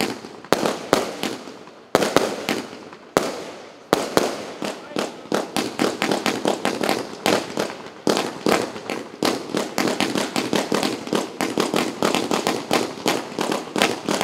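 A 42-shot fan-pattern firework cake firing. In the first four seconds a few single shots burst apart; after that come rapid reports, several a second, as the cake sends up its fan of gold-tailed comets.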